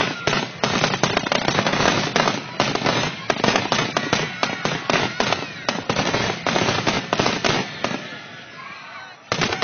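Aerial fireworks going off in a rapid, dense barrage of bangs and cracks. The barrage thins and fades about eight seconds in, then a fresh cluster of bangs starts near the end.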